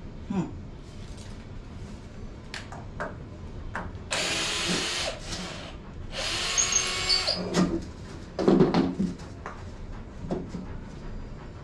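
Power drill running in two short bursts of about a second each, amid knocks and clatter of wooden boards being handled, with a louder thump later on.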